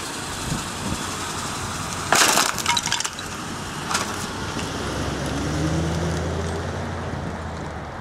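The tyre of a 1985 Chevrolet Caprice rolls over a small wooden bird house and crushes it: a loud crack and splintering about two seconds in, followed by a few smaller cracks. In the second half a low car engine hum is heard, with a slowly rising note.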